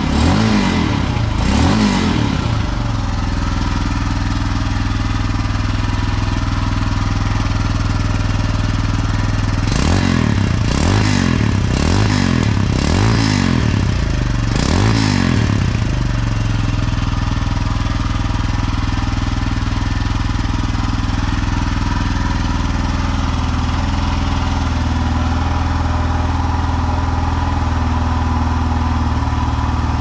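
Royal Enfield Himalayan's 411 cc single-cylinder engine idling while still cold after a cold start. The throttle is blipped briefly at the start and again about five times in quick succession between roughly ten and sixteen seconds in, the revs rising and falling each time before settling back to a steady idle.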